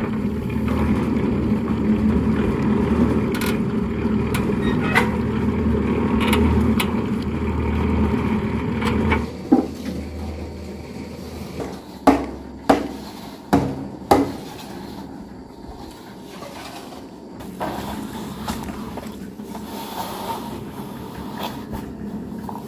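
A drum cement mixer running steadily, a low churning hum, which ends about nine seconds in. After it come a handful of sharp knocks, then the quieter scrape of wooden boards being drawn over a wet sand-cement floor bed.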